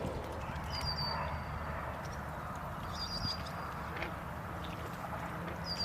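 A bird giving a short, high call three times, about two and a half seconds apart, over a steady low background rumble.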